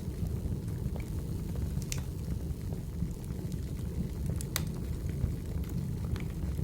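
Firewood burning in a fireplace: a steady low roar with scattered sharp crackles and pops. The loudest pops come about two seconds in and again about four and a half seconds in.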